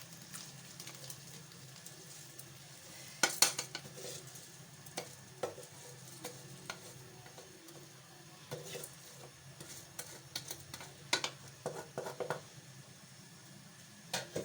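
Rice being added to a pot of vegetables cooking in water and stirred with a spoon: scattered clinks and scrapes against the pot, the loudest about three seconds in, over a faint steady hum.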